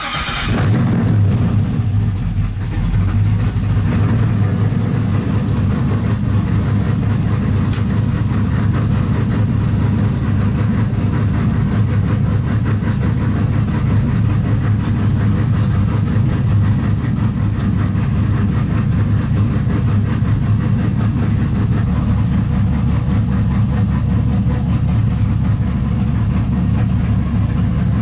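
LQ4-based LS V8 in a 1960s Chevy C10 pickup catching right at the start and settling into a steady idle. This is the engine's first start after a full rebuild, on fresh oil.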